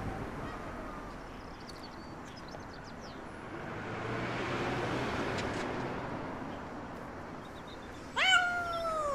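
An injured white cat meows once near the end, a single long call that falls in pitch.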